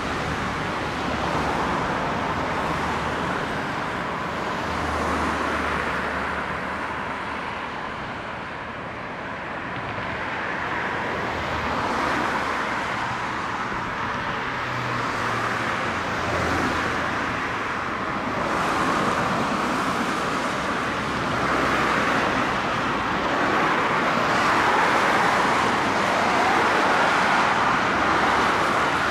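Steady road traffic noise from vehicles passing on the road deck, swelling and easing as cars and trucks go by, with a low rumble underneath.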